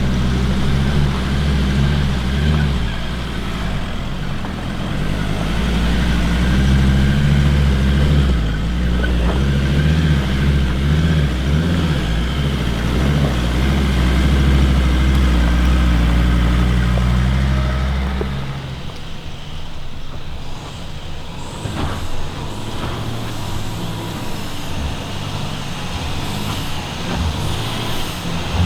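Four-wheel-drive vehicle's engine working hard on an off-road track, with a strong, steady low engine note. About two-thirds of the way through the engine note drops away to quieter running, with a few knocks and rattles.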